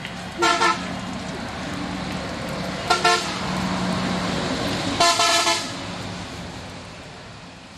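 Cycle rickshaw's horn sounded three times, short toots a couple of seconds apart, the last one a little longer, over a steady low hum that fades away near the end.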